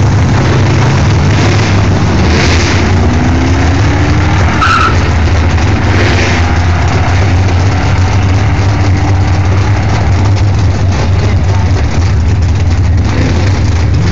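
Pickup truck launching at a drag strip and accelerating hard down the track, its engine pitch rising several times as it works up through the gears, over a steady low rumble.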